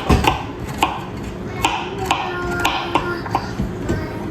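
Knife chopping vegetables on a cutting board: sharp taps at a slow, uneven pace, over faint background music.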